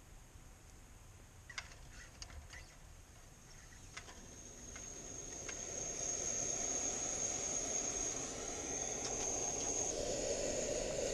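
Backpacking stove: a few sharp clicks, then a steady hissing rush with a thin high whine that swells over a couple of seconds and holds.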